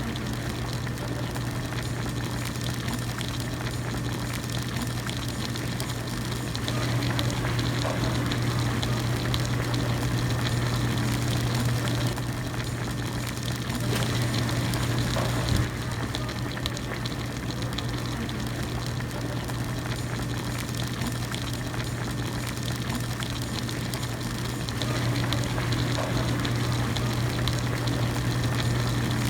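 Broth boiling steadily in an individual hot pot, a continuous bubbling over a constant low hum. The boil grows louder about seven seconds in, eases off for a while, and rises again near the end, with one sharp click midway.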